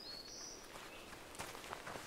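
Footsteps of two people on a dirt forest road, faint at first and getting closer from about halfway in. Near the start a bird gives a high, falling whistled call.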